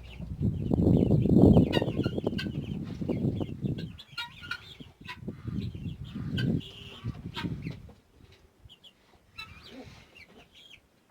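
Chickens clucking in short repeated calls, over a loud low rumbling noise during the first four seconds and again around six to seven seconds; the clucking carries on more faintly near the end.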